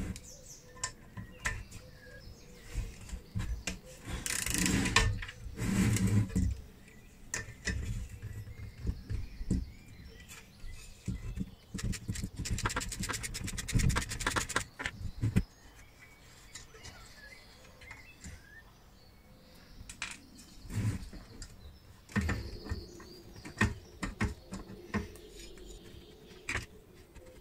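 Hand tools working on the steel case of an old battery charger: scattered clicks, knocks and short scrapes of metal as a socket wrench and screwdriver undo its fixings. There is a run of fast, even clicks about halfway through.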